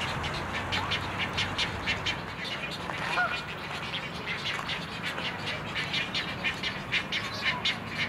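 Young egrets in a nesting colony calling: a fast, uneven run of short, dry calls, several a second, from many birds at once.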